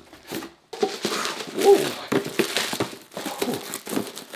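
Clear plastic bag crinkling and rustling as it is handled around a boxed drone, a dense run of small crackles with a short pause about half a second in.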